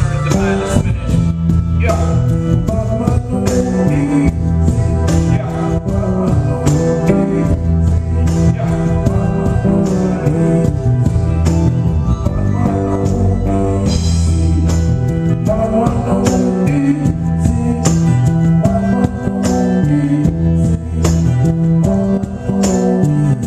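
A live band playing a song through the venue's sound system during a sound check, with a steady drum beat, bass and singing.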